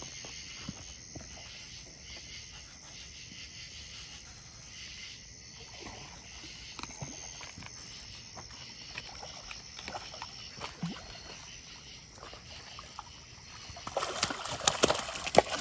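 Crickets chirping steadily at night. Near the end, a hooked channel catfish splashes and thrashes in the shallows as it is brought in to the bank.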